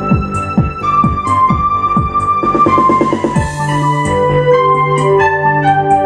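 Roland E-X50 arranger keyboard playing a melody over one of its built-in rhythm accompaniments, with a steady drum beat under sustained chords.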